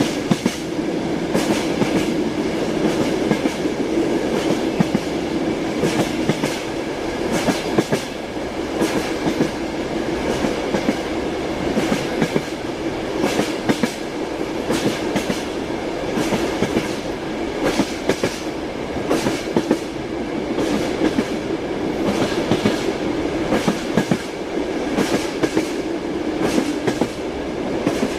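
Train wheels clattering over rail joints: a steady running rumble with groups of sharp clickety-clack clicks recurring every second or two.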